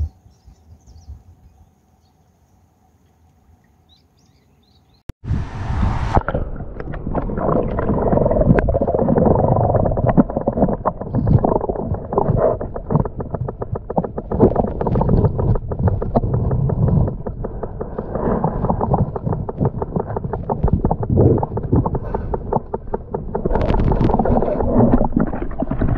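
Muffled underwater rumbling and gurgling of stream water heard through a submerged camera microphone, with a rapid crackle. It starts suddenly about five seconds in, after a quiet start.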